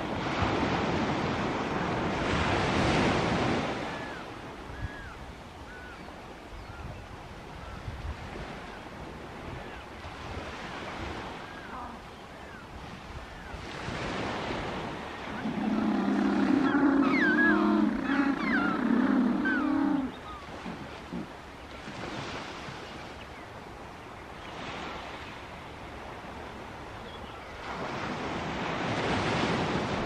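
Surf washing in and out in slow swells. Midway comes an African penguin's braying call lasting about four and a half seconds, the loudest sound here. Faint high chirps are scattered through the quieter stretches.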